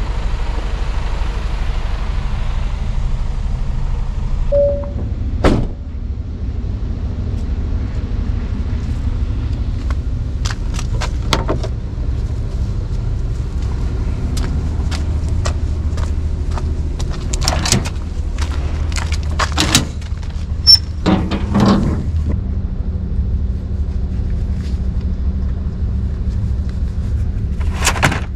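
Truck's diesel engine running steadily with a low rumble, under scattered sharp clicks and knocks, the loudest about five seconds in and about twenty seconds in.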